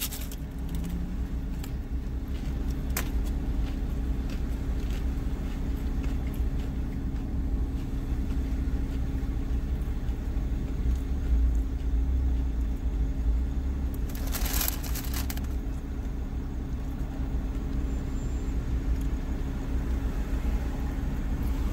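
Steady low rumble and hum of a car idling, heard inside the cabin. Right at the start comes a sharp crunch of teeth biting into a hard fried taco shell, and about halfway through there is a short hiss.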